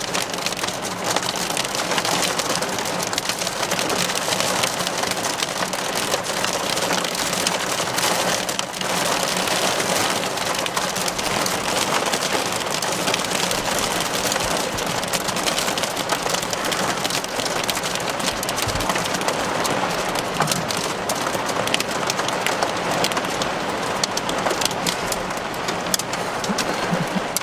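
Heavy rain mixed with small hail pelting a car's windshield and roof, heard from inside the car: a dense, steady hiss full of many sharp little ticks from hailstones striking the glass.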